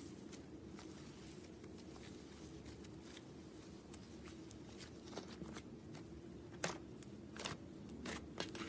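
Slime being handled, giving faint scattered clicks and a few sharper pops near the end over a low steady hum.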